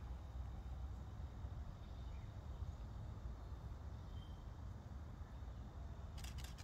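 Quiet outdoor ambience: a steady low rumble under a faint even hiss, with a quick run of sharp clicks near the end.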